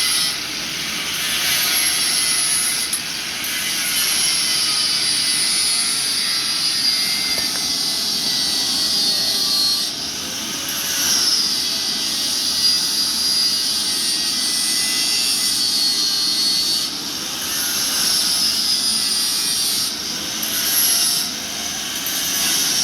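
Angle grinder grinding steel: a steady high whine and grinding rasp whose pitch sags and recovers several times as the disc is pressed into the metal and eased off.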